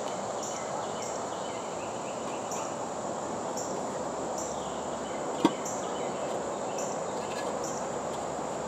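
Insects chirping in short, irregularly spaced pulses over a steady high buzz, with a steady background hiss; a single sharp knock about five and a half seconds in.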